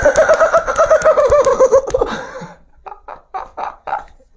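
A man imitating a horse's whinny with his voice: one quavering neigh, about two and a half seconds long, sagging in pitch at the end. It is followed by a few short laughs.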